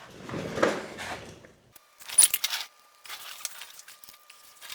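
A brief hiss, then small metal clicks and rattles as steel bolts are handled and threaded back in by hand.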